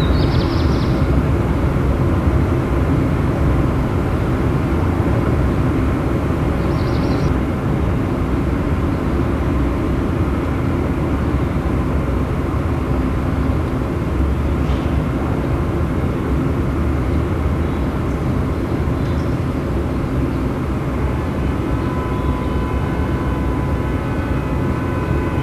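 Steady low rumbling background noise, like outdoor ambience with distant traffic, broken twice by a short high sound. Sustained musical tones fade in near the end.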